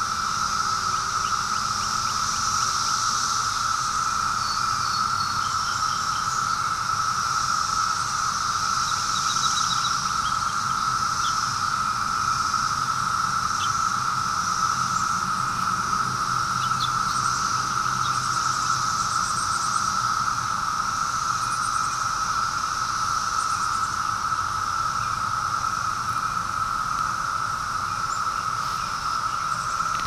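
A dense chorus of periodical cicadas: a steady, unbroken high-pitched drone that holds at one level throughout.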